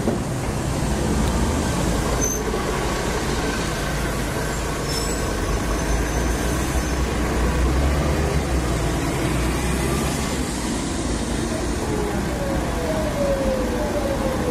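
Mercedes-Benz Citaro articulated bus pulling away from the stop, its diesel engine rumbling, followed by a GVB tram rolling in alongside. Near the end there is a whine falling steadily in pitch as the tram slows.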